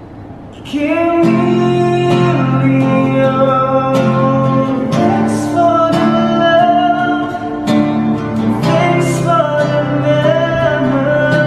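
A song: a sung melody over a plucked guitar accompaniment.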